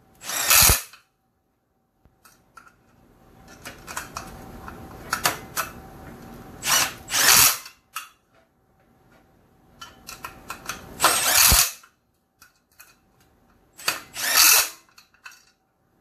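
Cordless Milwaukee Fuel driver running the rim bolts of a Keizer sprint car wheel snug on a first cross-pattern tightening pass. It comes in four short bursts spaced a few seconds apart, with quieter noise between them.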